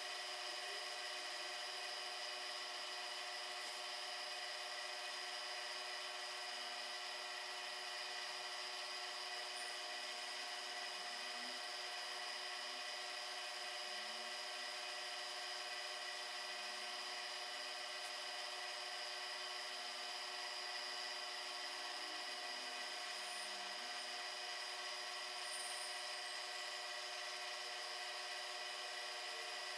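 Mini milling machine running with a small end mill side-cutting a slender brass part held in a rotary indexer. A steady, many-toned whine with the light cutting of the chips underneath.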